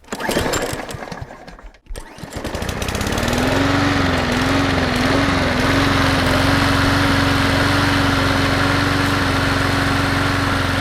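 Cub Cadet Enduro XT2 riding mower's 679cc fuel-injected engine sputtering irregularly for about two seconds, then catching. Its speed wavers up and down for a couple of seconds before settling into a steady run.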